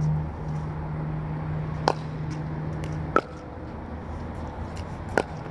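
Pickleball paddles hitting a plastic ball in a rally: three sharp pocks a second or two apart, with fainter clicks in between. Under them runs a steady low hum that cuts off about three seconds in.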